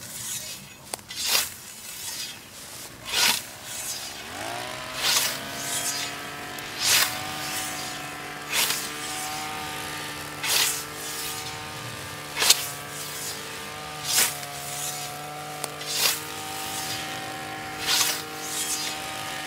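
Hand scythe blade swishing through tall dry grass in regular strokes, about one every two seconds. From about four seconds in, a small motor brush cutter revs up and then runs steadily underneath.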